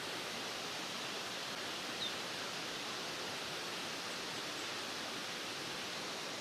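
Steady, even rushing of a forest waterfall, with one short high chirp about two seconds in.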